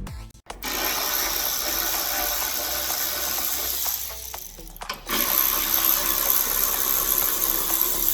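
A workshop tool running with a steady hiss in two long runs, with a short break about four and a half seconds in.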